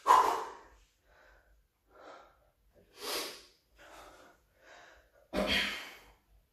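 A man breathing hard under exertion while holding an abdominal crunch: a series of short, noisy breaths, the loudest coming suddenly at the start and again about five seconds in, with fainter breaths between.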